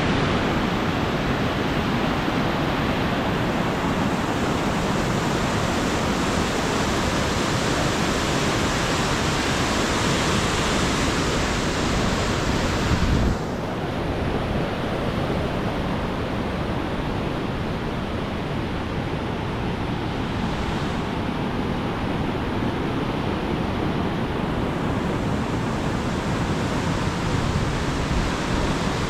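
Waterfall's steady roar of falling water, with some wind on the microphone. About halfway through the sound turns duller and slightly quieter.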